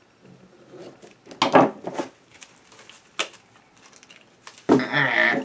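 Plastic shrink-wrap on a book being picked at and pulled open: scattered crinkling rustles, a sharp click about three seconds in, and a longer crackly stretch near the end.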